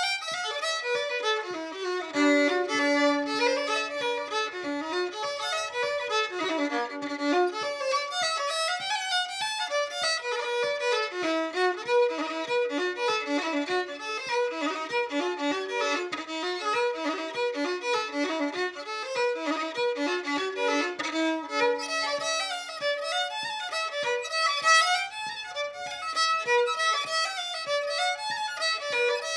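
Solo fiddle playing a traditional Irish reel: a fast run of bowed notes, with a couple of longer held low notes along the way.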